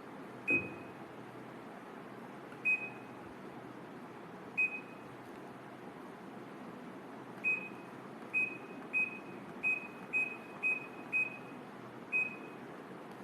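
Midea fully automatic washing machine's control panel beeping as its buttons are pressed: eleven short high beeps, first a few seconds apart, then in a quick run of about two a second. The first beep comes with a dull knock.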